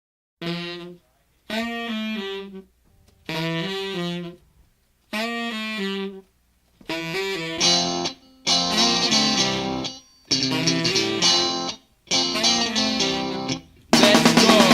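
Rock song intro: a pitched lead instrument plays four short repeated phrases with pauses between them. The fuller band joins about halfway through, and the full band comes in louder near the end.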